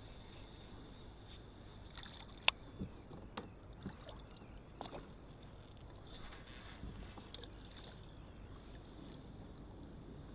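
Light knocks and clicks of gear being handled aboard a fishing kayak, the sharpest about two and a half seconds in, then a short rustle around six seconds in and one more click, over a faint steady high tone.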